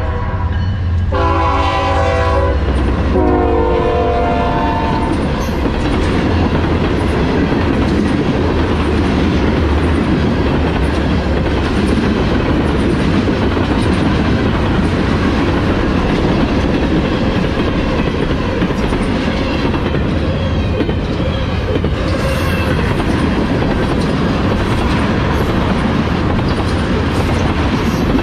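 Freight train led by diesel locomotives passing close by. The lead locomotive's air horn finishes one blast and sounds two more, ending about five seconds in. After that the locomotives' low diesel rumble gives way to the steady rumble and rattle of covered hoppers and tank cars rolling past, their wheels clicking over the rail joints.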